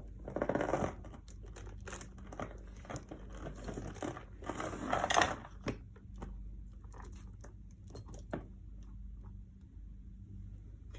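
A leather handbag and its packaging being handled: rustling and crinkling with scattered light clicks and faint metallic jingling. Two louder bursts of rustling come about half a second in and again around four to five seconds in.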